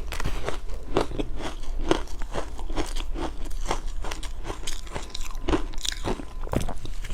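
Close-up crunching of ice being bitten and chewed: a run of sharp cracks, about two or three a second, as the ice breaks between the teeth.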